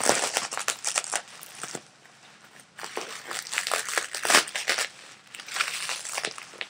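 Packing material crinkling and rustling as it is pulled off and handled, in three bursts with short pauses between.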